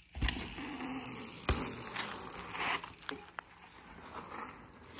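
YT Industries Capra mountain bike landing a small jump onto asphalt with a thump about a quarter second in and a second knock about a second and a half in, then its tyres rolling over the pavement with a few smaller knocks.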